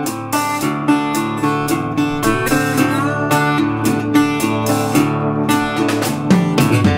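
Background music: acoustic guitar picking a quick run of plucked notes.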